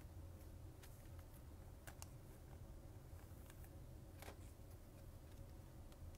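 Near silence: low room hum with a few faint clicks and rustles from a trading card being handled.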